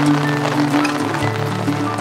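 Background music: held notes over a low bass note that steps down about a second in.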